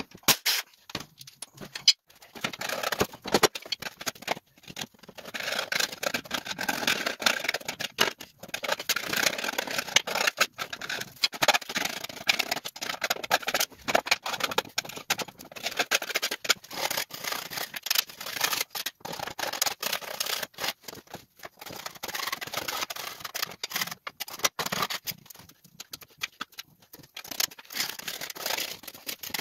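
Caked grass being scraped off the underside of a steel riding-mower deck with a hand scraper: irregular scratching strokes that start about five seconds in and ease off near the end. A few sharp knocks come in the first seconds.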